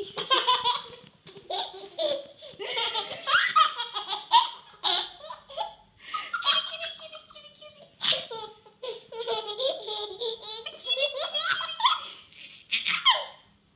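Baby laughing hard while being tickled, in repeated bursts of belly laughs and giggles with short pauses between.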